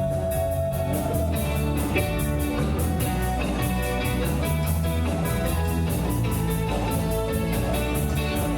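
Rock band playing live: electric guitar over bass and drums, with a steady beat throughout.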